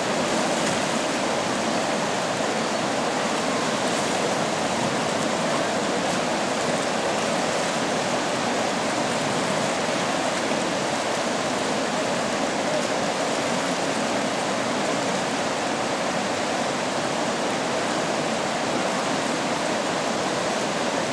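River water rushing steadily over rocks, an even, unbroken flow.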